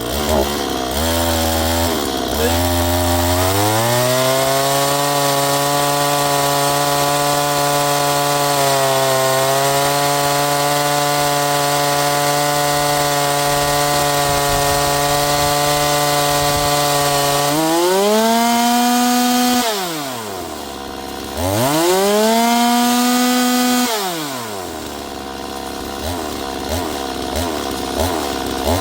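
Holzfforma G260 two-stroke chainsaw, a Stihl MS 260 clone, running without cutting. It is revved up and held at a steady speed for about thirteen seconds. Then it is pushed to full throttle, drops back to idle, revs to full throttle once more, and settles back to idle near the end.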